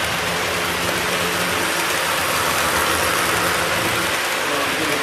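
Model railroad freight cars rolling past on the track: a steady rolling hiss from the metal wheels on the rails, with a steady low hum underneath.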